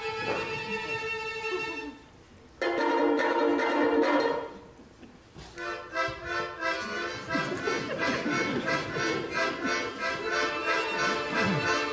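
Live folk-style band of accordion, fiddles, cello and horns playing under a conductor. A held chord cuts off sharply about two seconds in, and a second chord follows after a short break and fades. From about halfway the band plays a busier passage with a steady pulsing rhythm.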